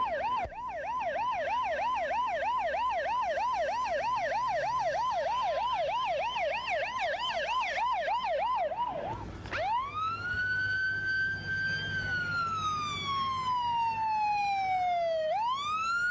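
Emergency vehicle siren on the fast yelp setting, about three sweeps a second, switching at about nine seconds in to a slow wail that rises, falls slowly, and starts rising again near the end.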